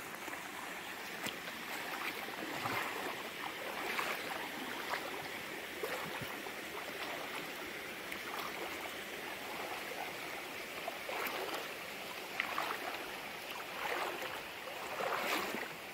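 Water sloshing and splashing around a person's legs as they wade across a stream, over the steady rush of the flowing water.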